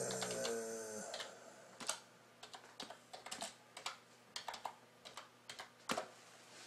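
Typing on a computer keyboard: irregular key clicks, with a louder key press about six seconds in.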